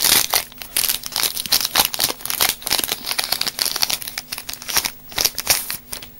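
Foil Yu-Gi-Oh Star Pack booster wrapper crinkling in the hands as the pack is opened. It is a dense run of irregular crackles that dies away near the end.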